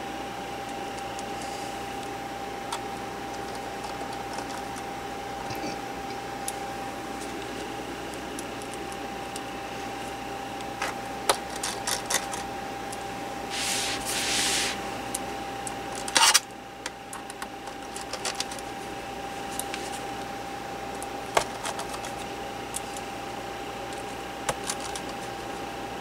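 Precision screwdriver driving the small screws of a 2011 15" MacBook Pro's aluminium bottom case back in: scattered light clicks and ticks of the bit and screws against the case. A brief rubbing hiss comes about halfway through, followed by one sharp click. A steady thin tone runs underneath.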